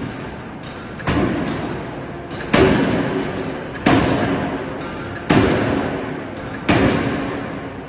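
Forging machine striking a hot 904L stainless steel ingot: five heavy thuds at a regular pace, about one and a half seconds apart, each followed by a long ringing decay.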